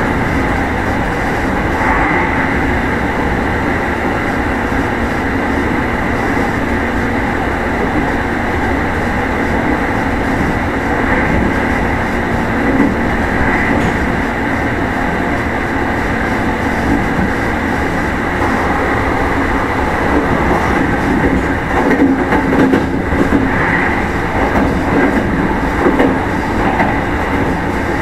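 Meitetsu 1000 series motor car Mo 1066 running at speed, heard from inside the car: a steady rumble of wheels on rail under a constant hum, with a few brief rattles and swells.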